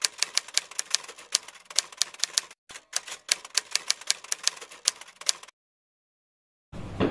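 Typewriter sound effect: a quick run of keystroke clicks, several a second, with a brief pause partway through, stopping about five and a half seconds in. Another louder sound swells in just before the end.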